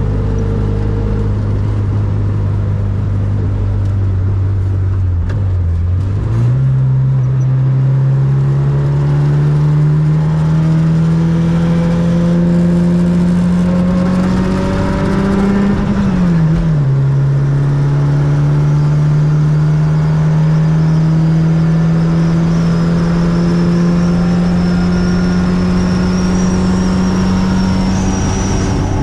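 Fiat 600 with a swapped-in 1.6-litre four-cylinder engine running hard at motorway speed. The engine note dips and then jumps higher about six seconds in, then rises steadily as the car pulls. It drops sharply at a gear change about sixteen seconds in, then climbs again.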